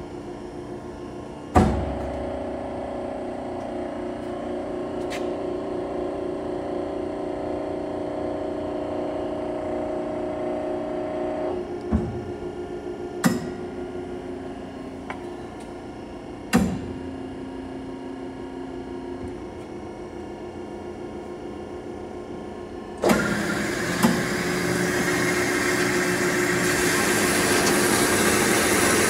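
Kasto automatic vertical band saw running, with its drives humming steadily after a loud clunk about one and a half seconds in. Three more sharp clunks come near the middle as the machine moves the steel tubing into place. After about 23 seconds a louder, hissing, grinding noise starts and grows as the band blade cuts into the rectangular steel tubing.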